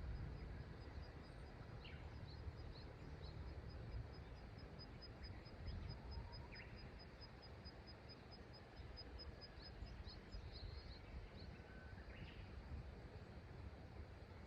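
Faint steady rush of river water with wild birds calling over it. A bird repeats one high note rapidly, several times a second, for about six seconds in the middle, and other birds give short scattered calls.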